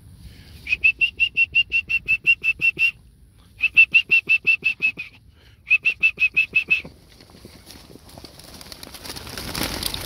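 Racing pigeons' wings clattering as the flock bursts out of an opened basket, the rushing flutter building near the end. Before that, three rapid runs of high, even-pitched piping notes, about six a second, are louder than the wings.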